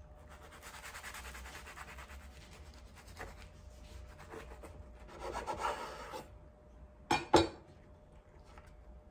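A chef's knife sawing back and forth through a toasted sandwich, the crisp toast rasping and crunching, loudest near the end of the cut. Then two sharp knocks as the knife is set down on the bamboo cutting board.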